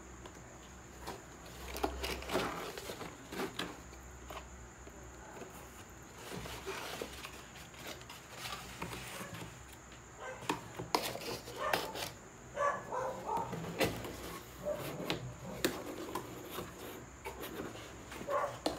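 Cardboard laptop box and its molded pulp packing inserts being handled: scraping, rustling and knocks of cardboard and paper, with a busier run of sharp clicks and scrapes in the second half.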